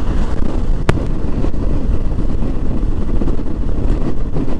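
Motorcycle running at road speed with steady wind rumble on the microphone; a single brief click about a second in.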